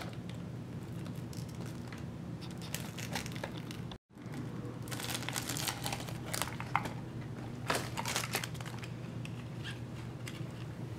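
Thin clear plastic wrapper crinkling and tearing as it is unwrapped from a toy gumball capsule, with scattered small crackles and clicks.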